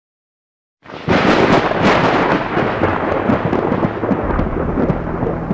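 Near silence, then about a second in a sudden, loud, dense noise starts and carries on steadily, like heavy rain with a low rumble under it.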